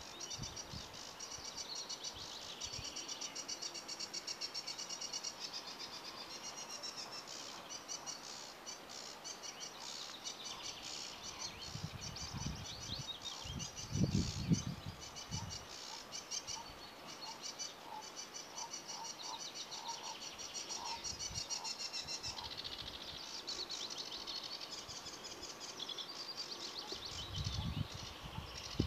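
Sedge warbler singing: a continuous fast chattering song of short, rapidly repeated high notes, changing pattern every few seconds. Two low rumbles of microphone noise come about halfway through and near the end.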